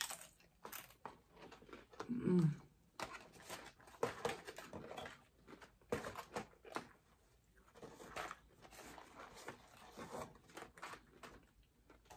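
Close-up chewing and crunching of crisp fried mini tacos, mixed with rustling and handling of paper fast-food boxes and bags, in many short crackles. About two seconds in, the eater gives a short hummed 'mm' through her closed mouth.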